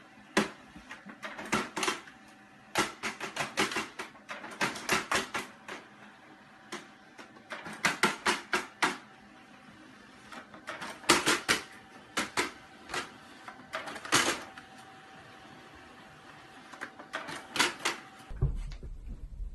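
An office printer running with a steady faint whine, under repeated quick bursts of clicking and paper rattling as a cat swats at the sheets in its output tray.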